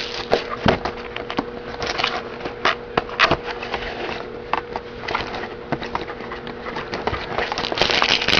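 A box of hockey trading cards being emptied by hand: a steady run of rustling, scraping and small clicks as the packs are handled, with a faint steady hum underneath.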